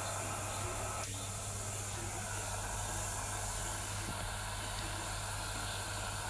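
Steady static hiss from an HF transceiver's receiver, with a low mains hum underneath.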